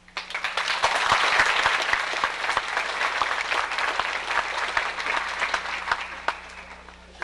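Audience applauding: many hands clapping, starting suddenly, swelling within the first second, then slowly thinning out and dying away to a few scattered claps near the end.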